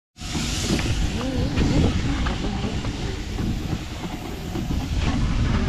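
Steady rumble of a small fishing boat's engine under way, mixed with wind noise.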